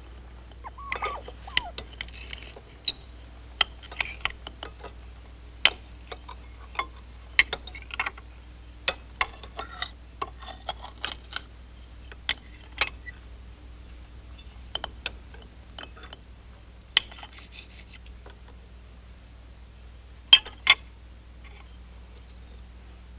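Cutlery clinking and scraping on china plates and wine glasses at a dinner table: irregular sharp clinks, sometimes several in quick succession, over a low steady hum.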